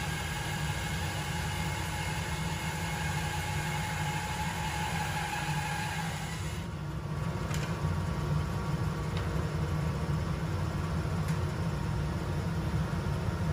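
A 14-inch Rikon 10-326 bandsaw running steadily while its blade resaws a walnut board, with a low motor hum under the noise of the blade. About halfway through, the high hiss drops away and a few faint ticks follow.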